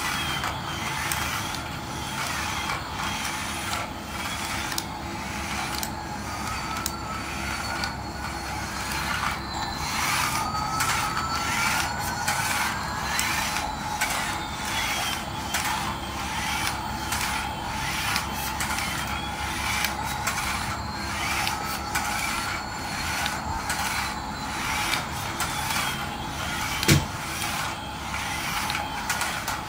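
Battery-powered toy Airbus A380 running across a tile floor: its small motor and gears whir steadily with a regular clicking, and faint tones slowly rise and fall. One sharp click near the end.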